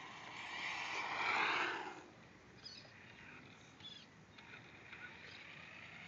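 Radio-controlled Tamiya FF01 car's electric motor whining, rising in pitch, with tyre hiss on rough asphalt as it speeds toward the microphone. The sound is loudest about a second and a half in, then drops away sharply as the car slows, leaving only faint short whirs.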